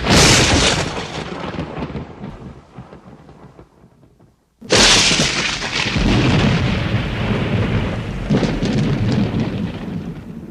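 Thunder claps. A sharp crack of thunder rolls off over about four seconds, then cuts off. A second sudden crack comes about four and a half seconds in and rumbles on, swelling again near eight seconds.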